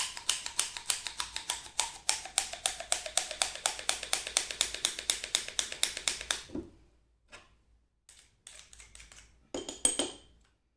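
Garlic cloves grated on a hand grater: a fast, even run of scraping strokes, several a second, stopping about six and a half seconds in. A few light handling sounds follow, with a short ringing clink near the end.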